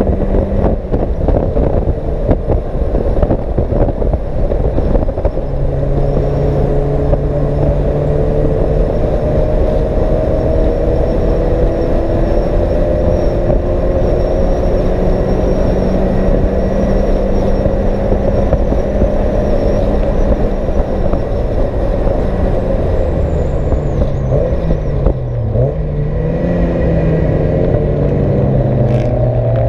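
Race car engine heard from inside the cockpit at speed, the revs climbing slowly and steadily over road and wind noise. Near the end the revs drop sharply, swing back up, and climb again as the car accelerates.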